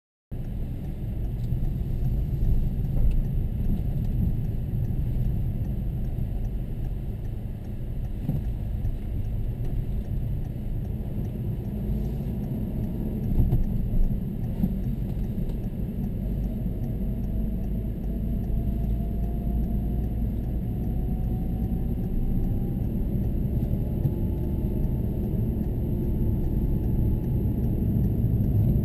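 Citroën DS3 being driven at speed on a circuit, heard from inside the cabin: a steady low rumble of engine and road noise, with a faint engine tone rising slowly in pitch in the second half as it accelerates.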